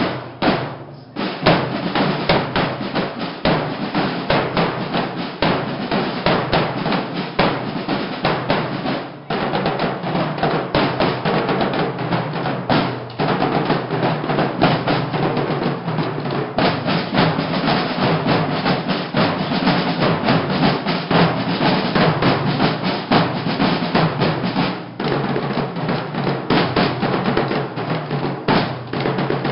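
Snare and bass drums of a banda de guerra playing a marching cadence with drum rolls. They come in about a second in after a brief pause, with a few short breaks between phrases.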